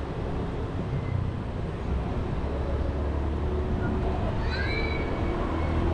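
Motorbike engine running steadily under way, with road noise, heard from the rider's own bike. A few short high-pitched gliding sounds come in about five seconds in.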